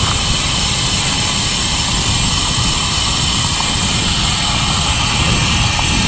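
Wind rushing over a GoPro's microphone during a road bike ride: a steady low rumble with a hiss over it, from gusty head and side winds.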